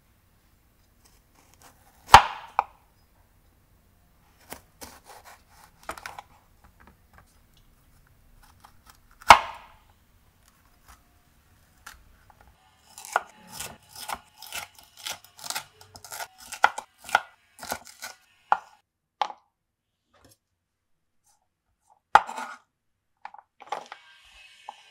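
Chef's knife cutting a green bell pepper on a wooden chopping board. A few loud single knocks of the blade on the board are broken up by a quick run of slicing cuts, about three a second, in the middle.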